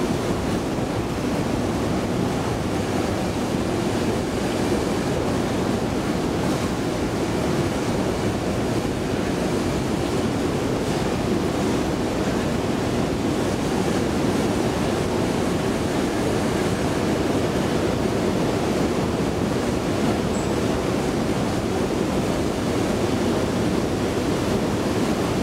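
1974 Hansa escalator running, a steady even noise heard from on board while riding it up the long incline.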